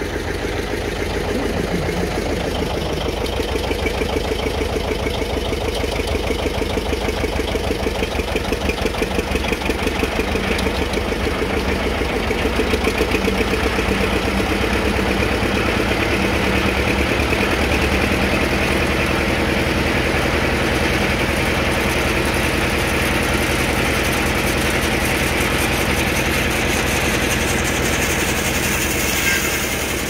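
Engine running at a steady speed, with a regular pulsing beat.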